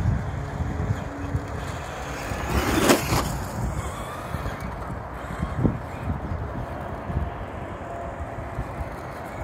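Road vehicle noise: a steady low rumble, with one vehicle swelling loud as it passes about three seconds in.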